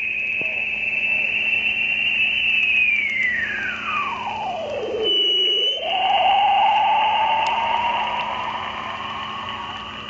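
Whistling beat tone of an interfering carrier heard through an Icom IC-7300 transceiver's speaker on 80-metre LSB. The tone holds high, glides steeply down to a low pitch about halfway through, breaks off briefly, then climbs slowly again over receiver hiss and a steady hum. The owner takes the signal for an industrial RF heating unit sweeping across the band.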